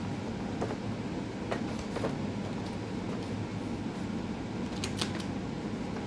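Steady low hum with a few light clicks and rustles of handling scattered through it, the sharpest cluster about five seconds in.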